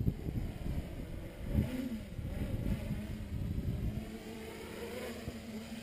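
Armattan 355 tricopter's brushless 2600kv motors buzzing in flight, the pitch swelling about a second and a half in and then holding steady. Wind rumbles on the microphone underneath, with a couple of low thumps in the first two seconds.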